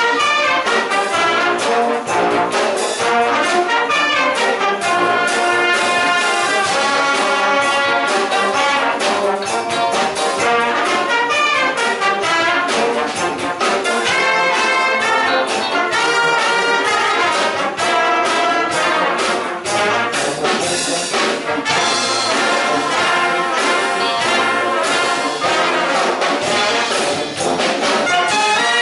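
A full concert wind band playing, with brass to the fore.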